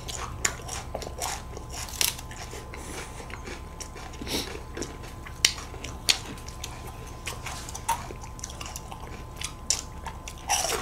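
Close-miked chewing and crunching of a crisp wafer ice cream cone: scattered sharp crackles at an irregular pace, with a few louder crunches.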